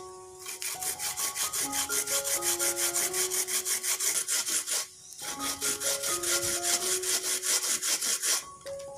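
Fresh coconut flesh being grated on a pin-studded wooden grater board: a fast, even rasping scrape at about five strokes a second, with a short pause about halfway through, stopping shortly before the end. Soft background music plays underneath.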